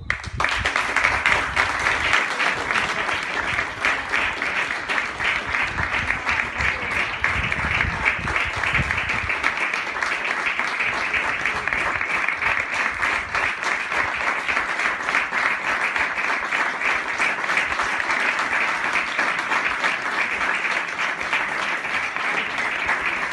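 Sustained applause from a crowd clapping by hand, dense and steady throughout.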